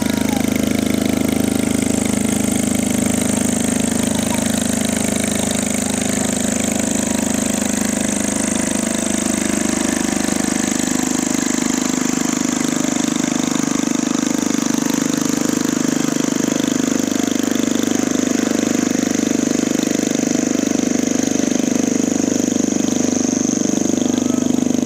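Ultralight aircraft engine running steadily under load, driving an oversized propeller that the builder says it cannot spin properly, so it gives little thrust. A high whine in the sound sinks slightly in pitch over the course of the run.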